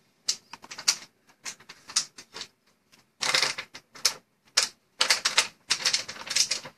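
Typing on a computer keyboard: irregular key clicks, some in quick runs.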